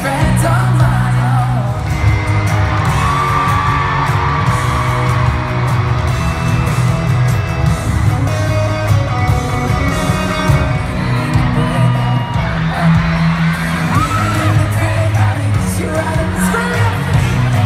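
A live pop-rock band playing loudly, with a lead singer's voice over guitars and drums, heard through a phone's microphone in an arena. Fans yell and whoop along.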